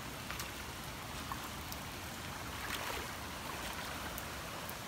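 Steady rushing of a creek in flood, swollen over its banks after heavy thunderstorm rain and running fast, with a few faint ticks.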